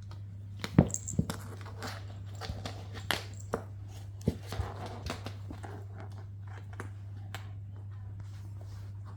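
Irregular crunching and crackling, a cluster of sharp clicks over the first half, over a steady low hum.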